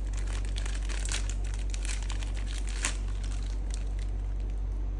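Packaging being handled and unwrapped, crinkling in irregular small crackles, with one sharper crackle about three seconds in, over a steady low hum.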